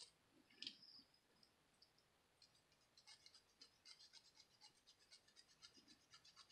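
Faint, irregular scratching of a small scouring pad rubbed over the copper commutator of a Lionel 2055 locomotive's motor armature, cleaning off carbon from the brushes.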